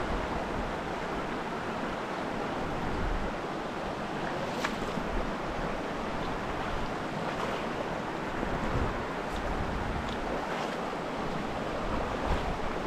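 Mountain stream running: a steady wash of flowing water, with wind rumbling on the microphone underneath and a few faint clicks.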